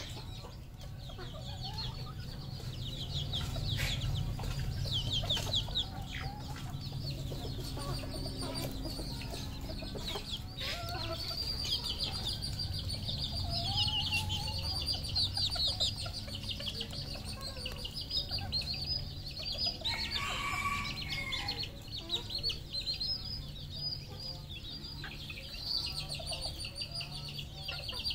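Red junglefowl clucking and calling over a constant chorus of high, rapid chirping, with one louder call about two-thirds of the way through.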